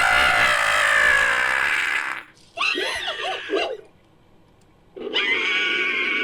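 Monkey-like creature cries made as sound effects: a long high scream falling in pitch that ends about two seconds in, then a short wavering call, and after a pause a steadier held call near the end.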